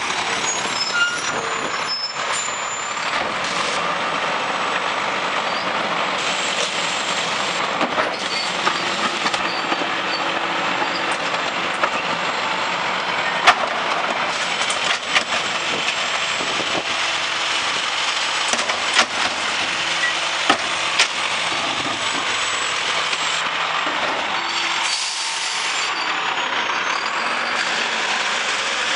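Garbage truck's engine running steadily while the side-mounted cart tipper lifts and dumps a recycling cart into the hopper. Several sharp clanks, the loudest about halfway through, come as the cart and tipper bang against the hopper.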